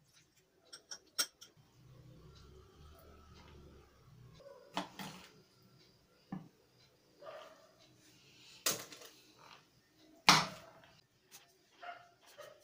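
Food prep on a wooden cutting board: kitchen scissors snipping, then a knife cutting a cucumber on the board, with a scattering of sharp knocks and clicks. The loudest knock comes about ten seconds in.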